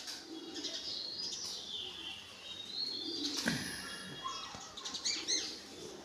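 Birds calling: whistled gliding notes in the first half and a quick run of high, arched chirps near the end. A single thump comes about halfway through.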